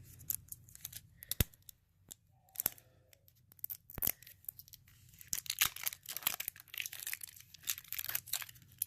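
Plastic packaging crinkling and tearing as a small toy item is unwrapped by hand: scattered snaps at first, then a dense run of crackling from about halfway through.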